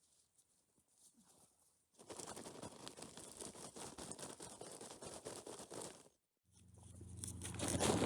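Rain pattering on tent fabric for about four seconds, then cutting off abruptly. Near the end a louder, low, steady-pitched drone fades in.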